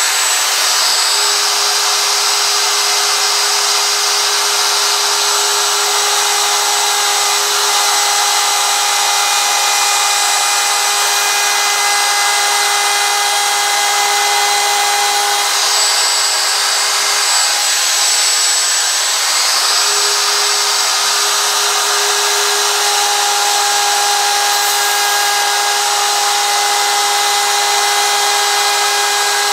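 DeWalt DW618 handheld router running continuously as its bit routes out the background wood of a carved sign, a loud steady whine over the rasp of the cut. The motor's tone wavers briefly in the middle as the load on the bit changes.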